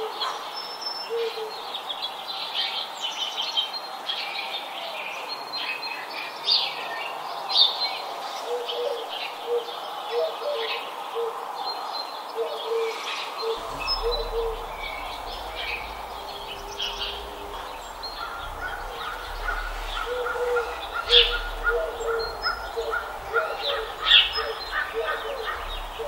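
Several birds calling together: many short high chirps and twitters, with runs of short low notes repeated underneath. A low rumble joins in about halfway through.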